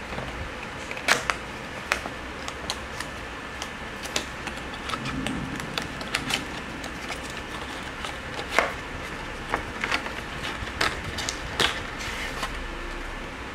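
Cardboard box of an LG G5 battery charging kit being handled and opened by hand: irregular sharp clicks and taps of fingers and card flaps, with the inner tray sliding out, over a steady background hiss.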